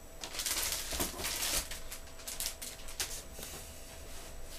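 Packaging being handled as a parcel is opened: rustling and scraping for about a second and a half, then a few light clicks and taps.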